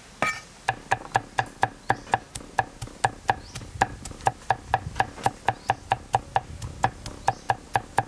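A steel cleaver chopping garlic cloves against a wooden chopping block: a steady run of sharp knocks, about four a second, starting under a second in.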